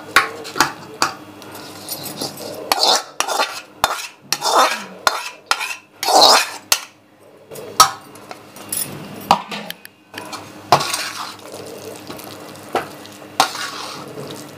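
A spoon scraping and clinking against a bowl at an irregular pace, mixing grated raw mango pickle with cooled tempering oil and mustard seeds.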